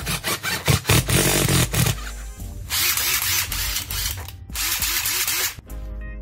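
Background music, with about three short bursts, each about a second long, of a DeWalt DC830 impact wrench converted to a lithium battery pack, run briefly with no load.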